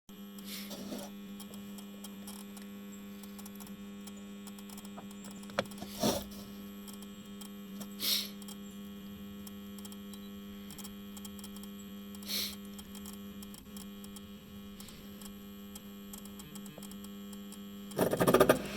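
Steady electrical hum from a Mammoth gas-fired heating unit that fails to start because of a bad ignitor. A few brief soft noises come over the hum, and a loud burst of clatter comes near the end.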